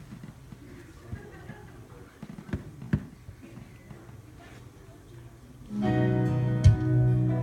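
A quiet room with a few sharp knocks, then recorded music with acoustic guitar starts abruptly near the end and plays loudly, a track started on a sound system.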